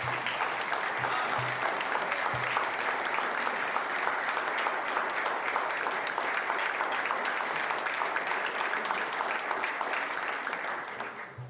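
Applause from a roomful of people, a steady dense clapping that dies away near the end.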